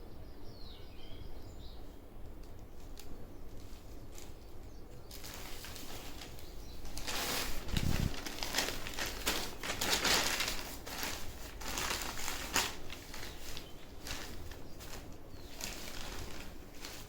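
Rustling and crinkling of a saree and its packaging being handled and unfolded, in irregular bursts starting about five seconds in and loudest around the middle.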